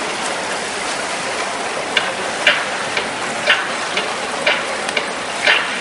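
Steady splashing hiss of swimmers racing in a pool. From about two seconds in, short sharp sounds come about twice a second.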